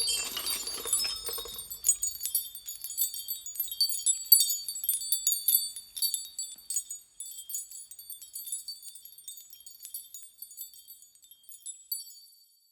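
Wind chimes tinkling: many small, high ringing strikes overlapping. They thin out from about six seconds in and fade away just before the end.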